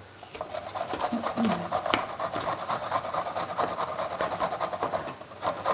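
Carrots being grated by hand on the coarse side of a box grater: quick rasping strokes in steady succession.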